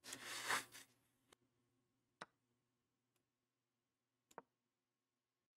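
Mostly near silence: a short burst of hiss-like noise in the first second, then a few faint, sharp clicks spaced one to two seconds apart.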